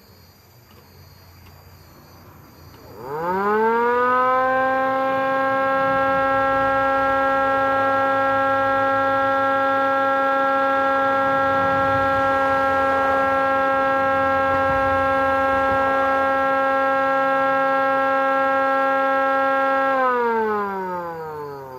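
MS-290 siren sounding once: about three seconds in it rises quickly in pitch to one steady tone, holds it, then falls in pitch and fades near the end.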